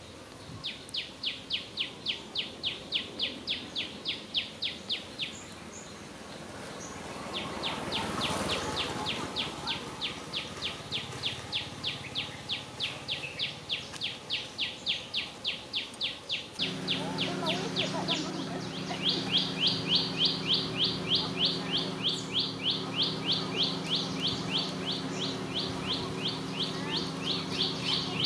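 Rapid, evenly repeated high-pitched chirping, about five or six chirps a second, in runs lasting several seconds. Just past halfway a steady low hum joins it.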